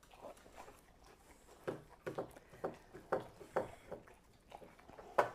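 Dogs licking and eating ice cream: a run of short wet licks, about two a second, starting a little way in.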